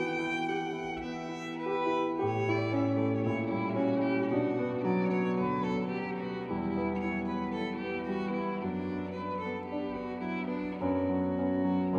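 Youth orchestra strings playing a slow classical passage: bowed violins carry the melody over long-held low notes that change every second or two.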